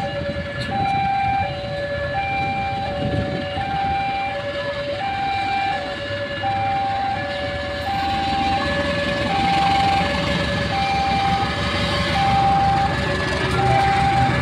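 Railway level-crossing warning alarm sounding a steady electronic two-tone chime, high and low tones alternating about once a second. Under it a diesel locomotive-hauled passenger train approaches and passes, its engine and wheels rumbling louder over the second half.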